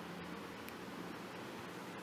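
Faint steady hiss of background noise from an open microphone, with one faint tick about two-thirds of a second in.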